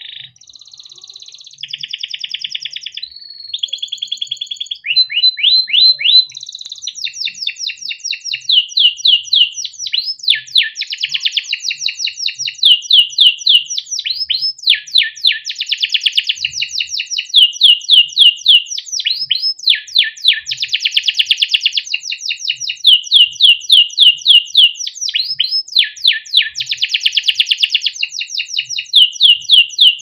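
Male canary singing a long, unbroken song of fast trills and rolls. Each phrase is a quick run of repeated high notes, many sweeping downward, and the bird switches to a new phrase every second or two. It starts softer and grows louder after the first few seconds.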